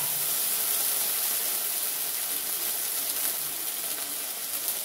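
Ginger paste sizzling steadily in hot oil in a metal kadai, a wet paste just added to the pan and giving off steam.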